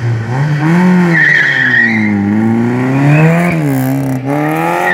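Small hatchback rally car, a Citroën Saxo, launching from the start and being driven hard: the engine revs rise and fall repeatedly as it accelerates and corners, with tyres squealing about a second in.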